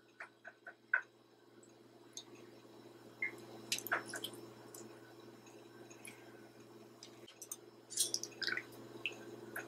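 Half a lemon squeezed by hand over a metal teaspoon: faint squishing and scattered drips of juice, with a few light clicks, over a faint steady hum.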